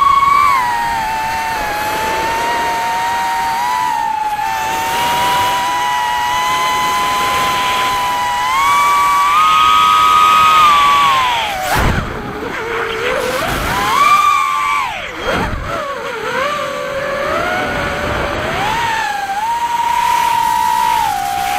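Tyrant 180 racing quadcopter's brushless motors and DAL 4-inch three-blade props whining, heard through the onboard camera. The pitch holds fairly level for long stretches, then falls sharply twice around the middle as the throttle is chopped and swings back up.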